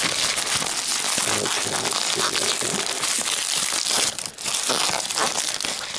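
Plastic bubble mailer crinkling and rustling continuously as hands grip and pull at it to get the glued envelope open, with a brief lull about four seconds in.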